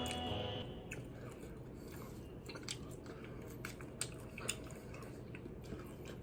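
Close-miked chewing of breaded fried chicken tenders: scattered soft crunches and wet clicks, with a couple of louder crunches a few seconds in.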